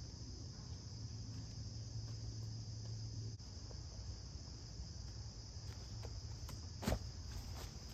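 Steady high-pitched chorus of insects buzzing, over a low rumble, with a single sharp click about seven seconds in.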